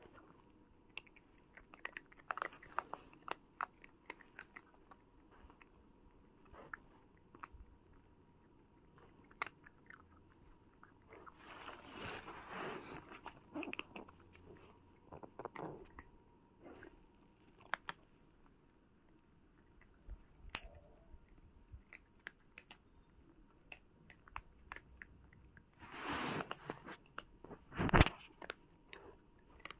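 Cats crunching dry kibble: scattered sharp crunches, with denser runs of chewing about a third of the way in and again near the end. One much louder sharp crack comes near the end.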